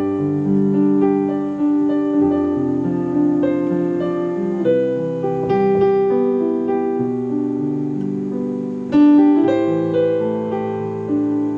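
Piano music with no singing: chords and single notes struck about once a second and left to ring.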